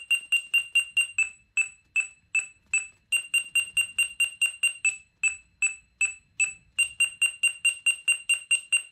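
Parking-sensor display's buzzer giving short, high-pitched beeps as a hand is moved in front of a sensor, warning of an obstacle about half a metre away. The beeping quickens and slows several times as the distance changes, running fastest at about five beeps a second.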